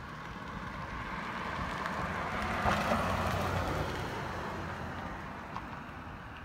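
A road vehicle passing by, its road noise swelling to a peak about halfway through and then fading.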